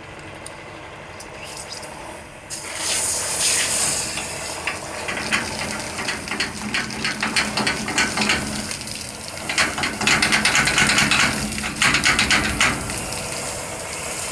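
Water gushing under pump pressure out of a chemical tanker's discharge pipeline outlet and splashing onto wet ground, flushing the line clean. It is faint at first, then comes in hard, spurting surges from about two and a half seconds in, loudest around ten to twelve seconds.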